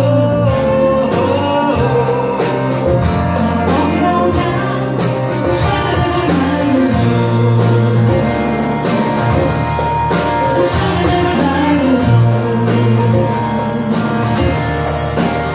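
Live band music with a steady drum beat, bass and guitar, and some singing, in an instrumental stretch between sung verses.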